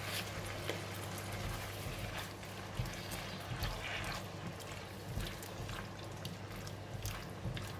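Stir-fry of beef, broccoli and mushrooms simmering in sauce in a non-stick wok, with soft wet scrapes as a silicone turner stirs it, over a steady low hum.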